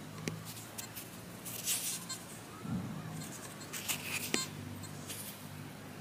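Faint scratching and rustling of fingers rubbing caked mud off a freshly dug coin, with a couple of sharp clicks and a low steady hum coming and going.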